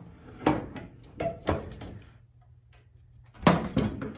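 Stud-welding dent puller being worked on a car's steel quarter panel: a series of about five short, sharp clacks and knocks, the loudest about three and a half seconds in.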